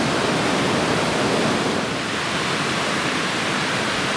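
Mountain river rushing through a gorge: a steady, even wash of running water.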